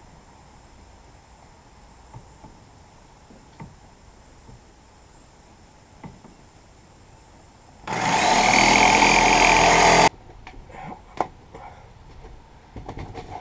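A power tool's motor spins up and runs for about two seconds, then cuts off abruptly; light knocks and rubbing of a panel being handled come before and after it.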